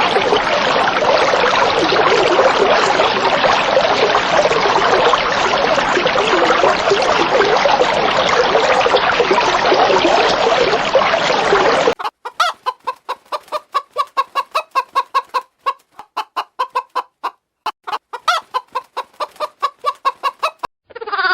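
Chickens clucking: a dense din from a flock for about twelve seconds that cuts off suddenly, then a single bird's rapid run of short clucks. A bleat begins right at the end.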